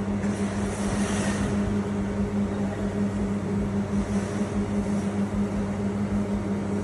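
Steady machinery hum: a constant low drone with a few fixed pitches over an even hiss, with brief rises in the hiss about a second in and again around four seconds in.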